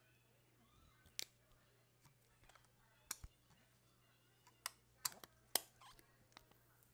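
Scattered sharp clicks and taps of fingers handling a new iPhone 11 lifted from its box, about half a dozen clear ones between one and six seconds in, over faint room tone.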